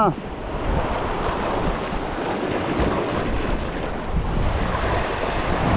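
Strong wind buffeting the microphone over the wash of the sea: a steady rushing noise with a low rumble.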